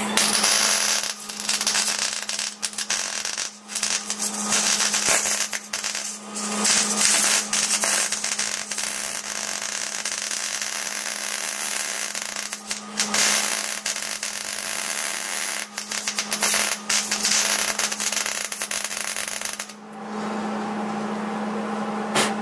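MIG welder arc crackling as a nut is filled with weld onto a stripped, rust-seized screw head, in several runs with short breaks, stopping about twenty seconds in. A steady hum runs underneath.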